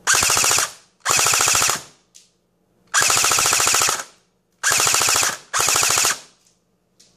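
SRC RPK airsoft electric gun with an all-metal gearbox firing on full auto in five short bursts. Each burst is a rapid rattle of shots lasting about half a second to a second, and the last two come almost back to back.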